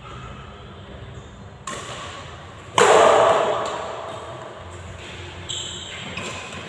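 Badminton rally in a large hall: rackets striking the shuttlecock and footwork on the court. A loud sudden sound about three seconds in rings out in the hall's echo.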